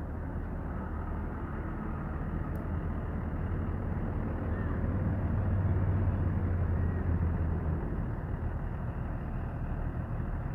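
A coach bus's diesel engine idling with a steady low hum, heard close alongside the bus, growing louder midway and easing a little near the end.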